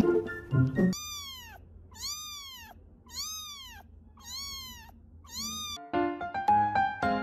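A cat meowing five times, about a second apart, each call rising then falling in pitch. Upbeat background music plays for the first second and comes back near the end.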